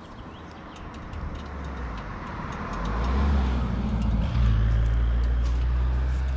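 A car driving past on the road: tyre and engine noise build up over the first three seconds, then a steady low engine hum holds to the end.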